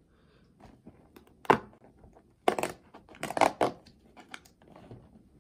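Hands opening a LEGO advent calendar door and handling the small bag of LEGO pieces inside: irregular sharp clicks, taps and rustles, the loudest click about a second and a half in and a busier cluster around the middle.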